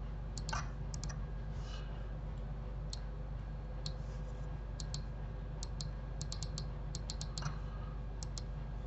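Scattered clicks of a computer mouse and keyboard, many in quick pairs or short runs, with a thicker run of clicks in the second half. A steady low hum lies under them.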